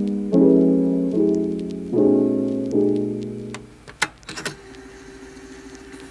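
Background piano music: soft chords struck about every 0.8 seconds, each fading away. After about four seconds the chords stop, leaving a few clicks and a faint held note.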